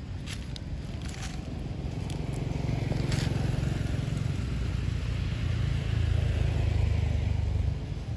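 A low rumble swells a couple of seconds in, holds, and drops off sharply near the end, with a few brief crackles in the first seconds, the loudest about three seconds in.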